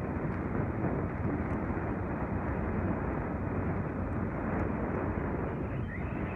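Steady rumble of a vehicle driving along a road: engine and road noise heard from on board, with no change in pace.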